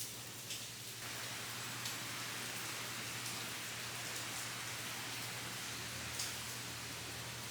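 Steady rain falling: a dense, even hiss with scattered louder drops, thickening about a second in, over a faint steady low hum.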